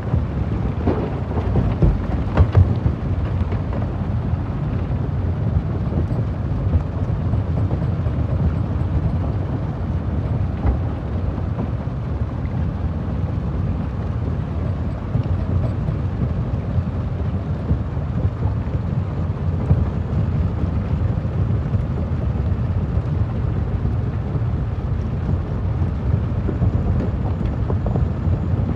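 Stone crusher machine running with a steady low rumble, with a few sharp cracks about one to two and a half seconds in.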